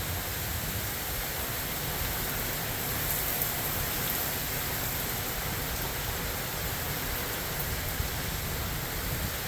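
Heavy thunderstorm rain pouring down with strong wind, a steady rushing hiss with a rumbling low end.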